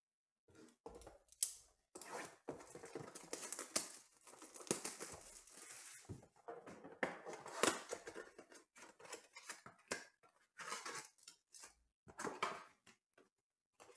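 A 2019-20 Panini Mosaic basketball blaster box being opened by hand: its wrapper and cardboard tearing and crinkling, with sharp clicks and taps as the foil packs come out and are stacked on the table.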